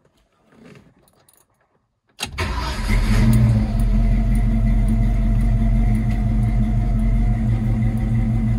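A 1966 Ford Mustang restomod's engine, heard from the driver's seat, starts suddenly about two seconds in after some faint handling sounds, swells briefly, then settles into a steady idle.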